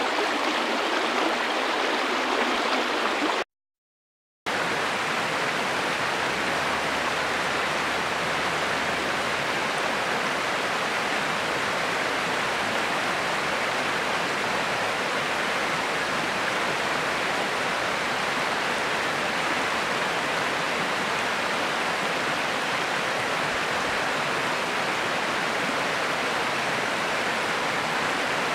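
River water rushing, a steady even flow. About three and a half seconds in it stops dead for about a second, then another river recording starts, with more low rumble, and runs on steadily.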